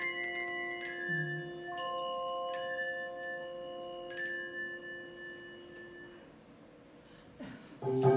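Handbells ringing: a few chords struck at intervals, each left to ring on and die away almost to silence, then many bells come in loudly together near the end.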